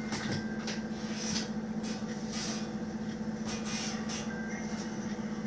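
Low steady hum of an indoor room, with a few faint, brief rustles and clicks scattered through it.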